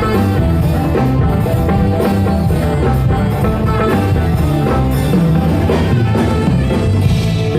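A band playing rock music over a PA system during a sound check, with a steady beat on drum kit and guitar.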